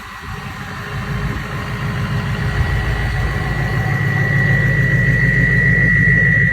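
Turbodiesel pickup engine idling, its turbocharger giving a steady high-pitched whistle over the low engine rumble. The whistle and the engine grow gradually louder.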